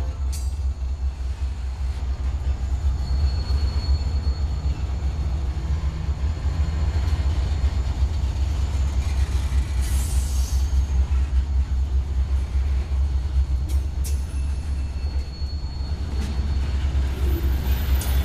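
A freight train with EMD GP40 diesel locomotives passing close by: a steady low rumble as the locomotives and then the boxcars roll over the rails. A faint high wheel squeal comes and goes, and there are a couple of sharp metallic clanks near the end.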